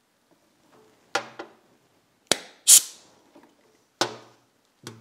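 About five sharp metal knocks and clunks as a heavy machined steel bearing cap is handled, set down and knocked on a steel workbench. Some of them ring briefly at a low pitch, and the loudest comes near the middle.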